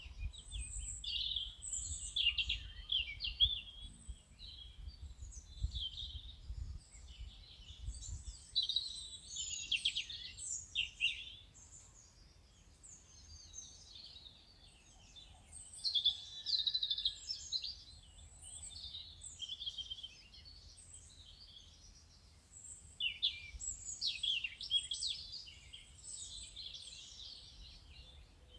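Several songbirds chirping and singing together in overlapping quick phrases, coming in spells with short lulls between.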